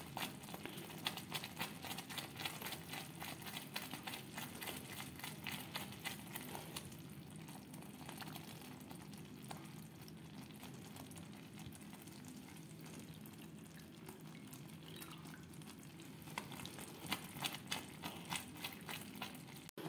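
Thick jaggery syrup bubbling in a pan as it is cooked down toward the hard stage, with a spoon stirring it. Many small quick pops and scrapes, thicker in the first few seconds and again near the end, over a low steady hum.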